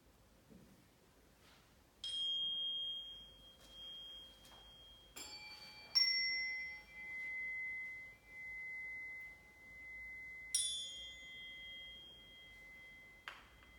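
Small high-pitched metal instruments struck one at a time: four clear ringing notes, each bright at the strike and then settling to a single pure tone that rings on, the second and third close together. A short click sounds near the end.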